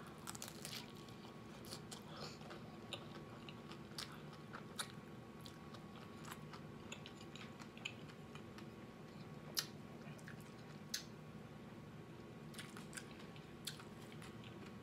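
Biting into and chewing a crunchy hard-shell chicken taco: a burst of crisp crunches as the shell breaks at the start, then chewing with scattered crunches, two sharper ones past the middle, over a faint steady hum.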